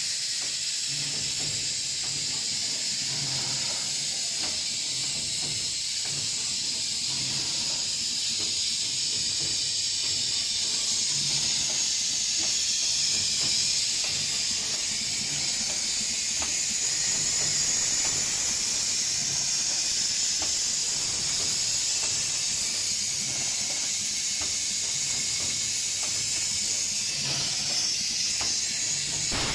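Vertical form-fill-seal bag-making packaging machine running: a steady hiss, with a low hum that comes and goes as it cycles and faint clicks.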